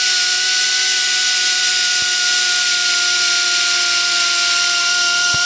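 Die grinder running with a steady high whine and the hiss of metal being ground as it grinds out the rivets on the back of a clutch basket.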